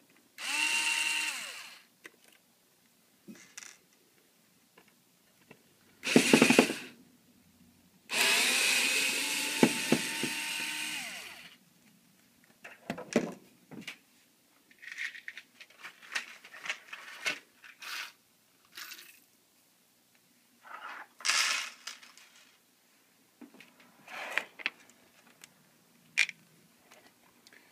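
Electric screwdriver whirring in three bursts, the last and longest about three seconds, backing out the screws of a TV's rear cover. Then many short clicks and knocks of the screws and the plastic cover being handled.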